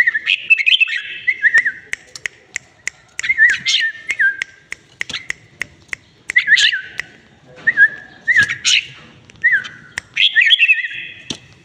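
Red-whiskered bulbul singing short, warbled whistled phrases in bouts every second or two. Many sharp clicks run between the phrases.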